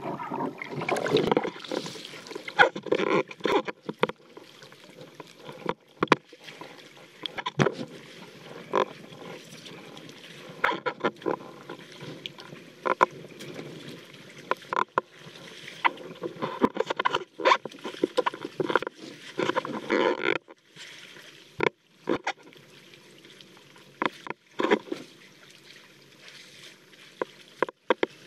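Water splashing and sloshing around an action camera mounted on a handheld foil wing, with many irregular sharp knocks and splats as water hits the camera housing; loudest in the first few seconds as the camera comes up out of the water.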